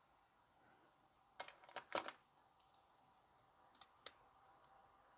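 Light clicks and clinks from metal watches being handled, in two short clusters: three about one and a half to two seconds in, and two around four seconds in.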